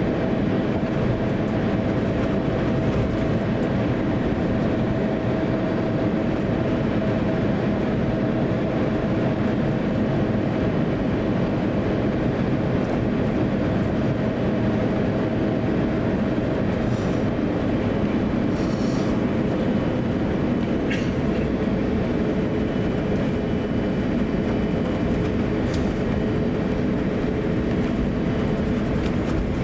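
Steady cabin noise of an Airbus A350-900 taxiing, its Rolls-Royce Trent XWB engines at idle, with a thin steady hum that shifts to a lower pitch about two-thirds of the way through and a couple of faint ticks.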